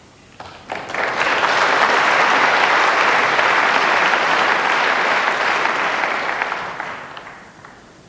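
Audience applause at a snooker match: a few scattered claps about half a second in, swelling within a second into full applause that holds for several seconds, then dies away near the end.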